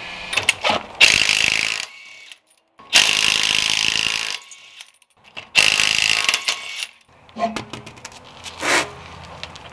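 Cordless impact wrench hammering lug nuts loose on a car wheel, in three runs of about a second to a second and a half each. Light knocks and clatter follow as the wheel is handled.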